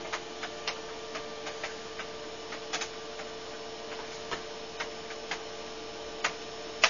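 Irregular light clicks, about fifteen over several seconds at uneven spacing, the loudest one near the end, over a steady electrical hum.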